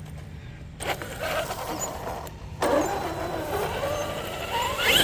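Traxxas X-Maxx RC monster truck driving, its brushless electric motor whining with the noise of the tyres on the ground, the whine gliding up in pitch near the end as it speeds up.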